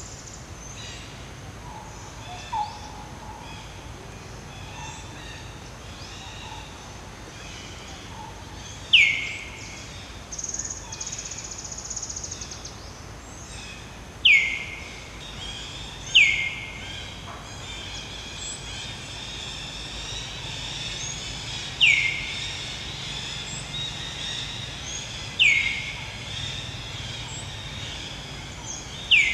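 Birds calling: a loud, sharp call that sweeps downward, repeated six times a few seconds apart, over softer high chirps and a brief buzzy trill, with a steady low background hum.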